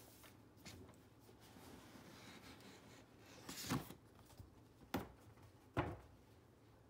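Cardboard doll box being opened by hand: soft rubbing of cardboard, with three short sharp knocks in the second half as the lid and sleeve are lifted off and set down.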